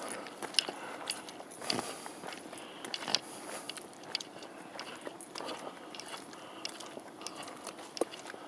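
Footsteps on a dirt forest trail: irregular crunches and scrapes underfoot, without a clear steady rhythm.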